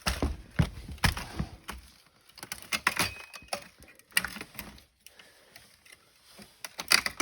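Irregular clicks, knocks and rattles of laptop parts being handled and pulled out, loudest in the first second and again near the end.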